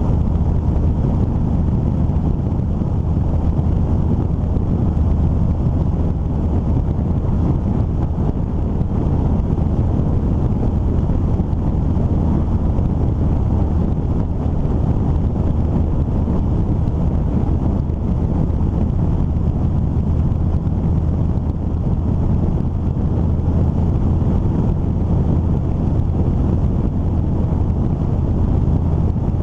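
Steady low rumble of wind buffeting the microphone of a camera riding on a moving vehicle, mixed with road noise.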